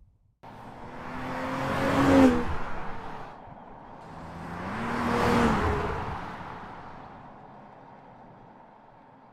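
A car driving past twice, about three seconds apart. Each time the engine note climbs as it approaches and drops as it passes, and the first pass is the louder. The sound starts suddenly and fades to a low hum after the second pass.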